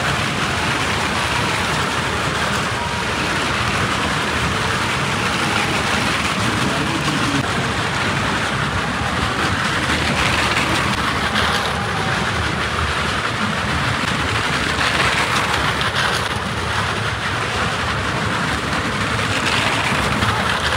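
Motorbikes and cars riding round the wooden wall of a well-of-death show: a loud, continuous din of engines and wheels on the planks that swells a little now and then.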